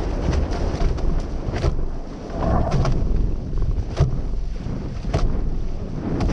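Wind buffeting the microphone of a camera on the bow of a sailing catamaran under way, over water rushing past the hulls. A handful of sharp knocks break through, about one a second.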